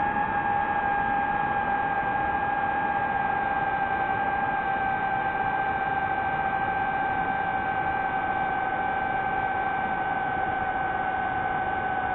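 DJI FPV drone's motors and propellers whining steadily in flight, one high tone with a second an octave above it, sinking slightly in pitch, over a rushing hiss.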